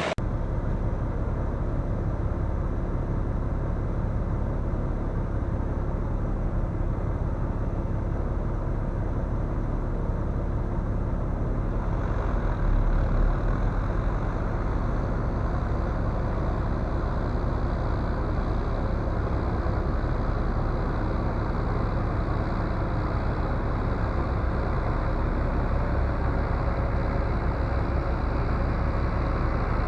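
Vehicle engine running steadily as a low, even rumble, with a slight rise in level and change in tone about twelve seconds in.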